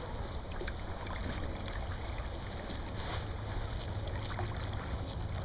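Wind rumbling on the microphone outdoors from a kayak on open water, a steady low buffeting with a few faint ticks and small splashes.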